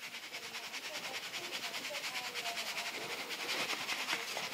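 Plastic sieve being shaken rapidly back and forth, ground maize rustling and sifting through the mesh onto a steel plate in a fast, even rhythm.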